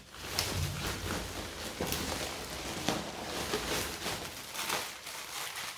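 Plastic rustling and crinkling, with irregular crackles, as hands dig through a plastic shipping bag and pull out a plastic-wrapped item.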